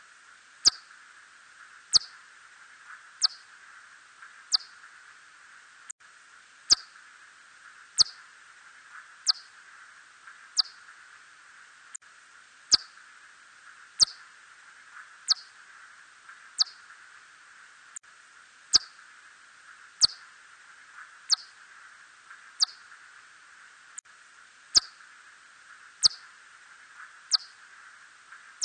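Red bat (Myotis rufoniger) calls: a regular series of short, high downward-sweeping chirps, about one every 1.3 seconds, over a faint steady hiss.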